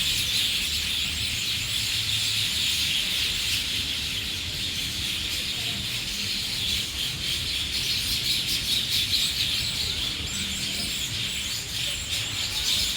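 Many small birds chirping together in a dense, continuous chorus.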